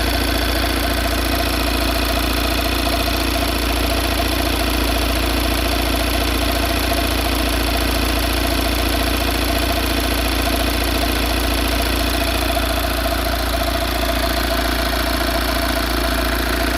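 Volkswagen Transporter T5 engine idling steadily with a knock whose cause the owner cannot identify.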